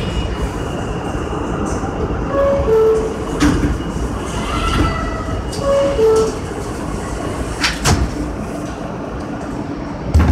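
R160 subway train standing in a station, its equipment giving a steady rumble. A descending two-note door chime sounds twice, about three seconds apart, and a few sharp clicks and knocks ring out in between and after.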